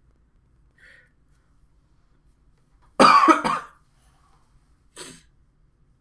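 A man coughing: a loud double cough about three seconds in, then one short, fainter cough about five seconds in.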